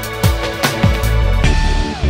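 Background music with a steady beat of sharp hits over a deep bass line; near the end a held high note slides down in pitch.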